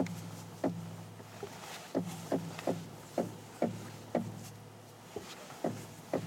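Upper strut mount on a 2008 Chevrolet Malibu's front strut giving a string of short, sharp clunks at uneven intervals as the steering wheel is turned, over a steady low hum. This is the sound of a bad strut mount, whose plastic top bearing the owner believes is catching.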